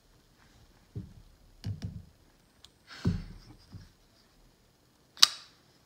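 Folding knife (Vero Engineering Synapse prototype) being handled just after its pivot screw is adjusted: a few soft separate clicks and knocks, then one sharp, loud click near the end as the blade is worked.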